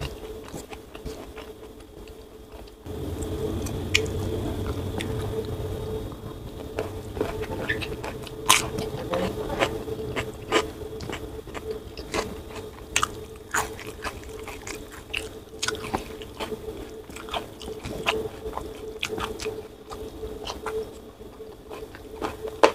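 Close-up eating sounds: chewing and crunching with many sharp mouth clicks and smacks, over a steady low hum. A low rumble swells in about three seconds in and fades near six seconds.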